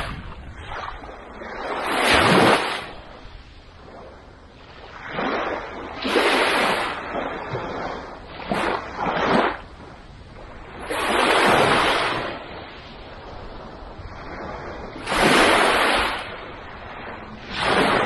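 Small, calm waves breaking on a sandy beach and washing up the shore: a rush of surf swelling and fading about every three to four seconds, with a softer hiss of water between.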